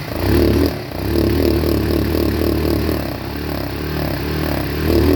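Yamaha Factor 150 single-cylinder motorcycle engine running, its loudness swelling and easing a few times.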